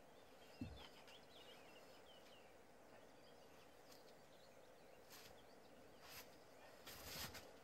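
Near silence: faint ambient noise with a few faint bird chirps in the first few seconds, a soft thump about half a second in, and brief rustles near the end.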